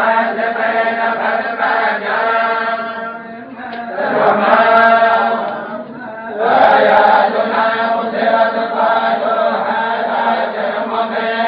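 Tolba, a group of religious reciters, chanting in unison in long sustained lines. There are two short dips, about three and a half and six seconds in, where the chant pauses for breath before picking up again.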